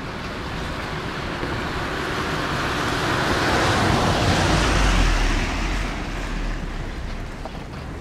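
A car passing by: its road noise swells to a peak about halfway through, with a low rumble at its loudest, then fades away.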